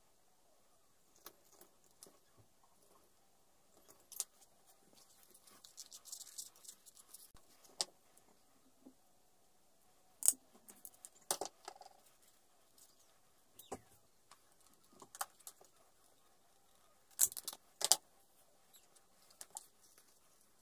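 Scattered sharp clicks and clinks of small metal snap parts and a hand snap-setting pliers pressing fittings onto a leather strap, with soft rustling of the leather being handled. The loudest clicks come around the middle and again near the end.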